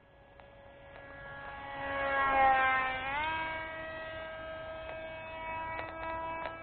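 Small RC model airplane's motor and propeller whining in flight, growing loudest about two and a half seconds in while the pitch sags, then stepping up in pitch and holding steady. A few faint clicks near the end.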